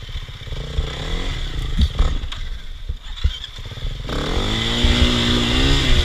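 Dirt bike engine working through a shallow creek crossing, with water splashing at the front wheel. The revs rise about four seconds in and hold high as the bike pushes up the climb out of the water.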